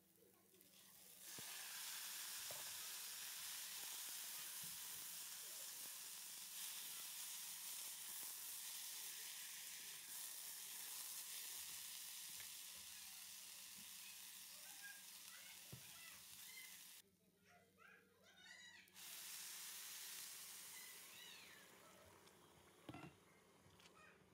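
Vermicelli, carrot strips and rice frying in oil in a pot: a steady sizzle that starts about a second in, breaks off briefly about two-thirds of the way through, returns, then fades near the end.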